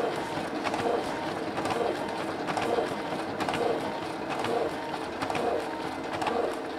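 Canon iR6000 photocopier running a continuous copy job: a steady machine sound with a clunk and click repeating a little under once a second as each copied sheet is fed and ejected into the output tray.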